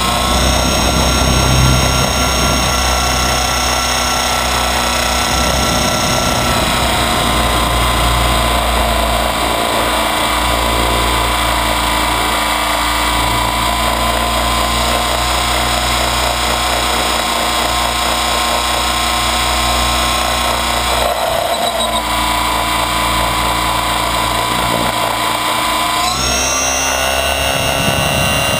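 Align T-Rex 550 electric radio-controlled helicopter in steady flight, heard close up from a camera on its frame: a loud, steady whine of the motor and gears with rotor noise. The pitch shifts briefly about two-thirds through and again near the end.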